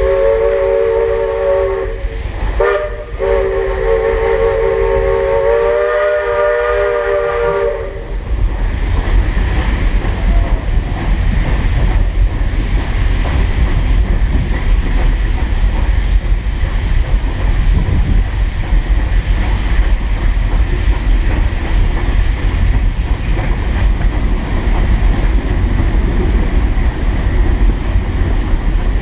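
1915 Baldwin steam locomotive's whistle blowing two blasts of several notes at once, a short one and then a longer one of about five seconds. After that the train runs along the track with a steady low rumble and clatter.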